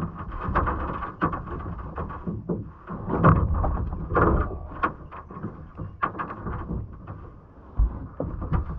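Irregular knocks, clatter and rustling in a small fishing boat while a freshly caught brook trout is handled.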